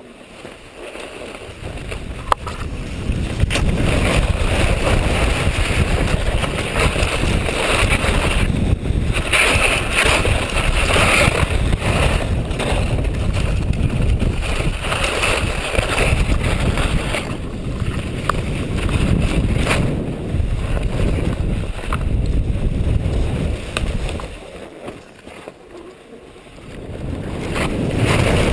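Wind rushing over the camera microphone during a ski run downhill, mixed with skis sliding and scraping on packed snow. The noise is steady and loud, eases for a few seconds near the end, then builds again as speed picks up.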